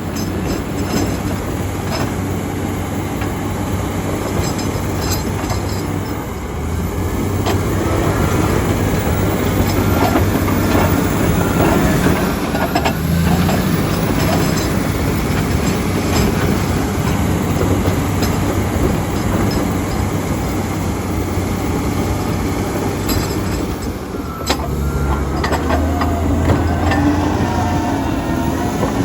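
Komatsu D85EX crawler dozer working: its diesel engine runs steadily under load while the steel tracks clank, with metallic squeals near the end.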